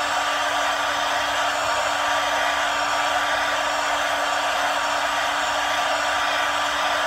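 Electric hot-air blower running steadily, a constant rush of air over a steady motor hum, as it heats the steering wheel's center emblem to soften the badge adhesive for removal.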